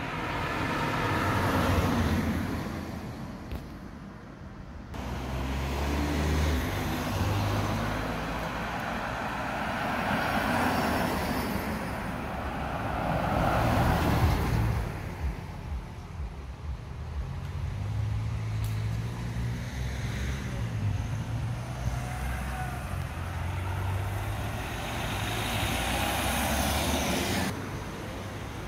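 Cars passing by one after another on a road, each one's engine and tyre noise swelling and fading away. The loudest pass, about halfway through, is a dark SUV going by close.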